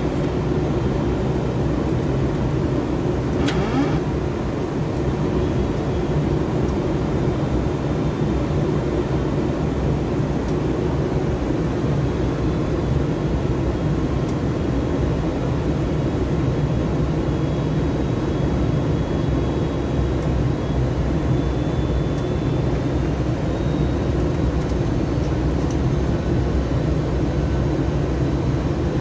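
Steady low rumble of airflow and engine noise inside a Boeing 767-300F flight deck on final approach, with a brief click about three and a half seconds in.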